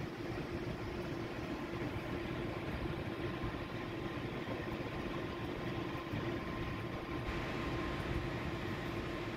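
Steady hum of workshop machinery running, with a faint steady whine above it.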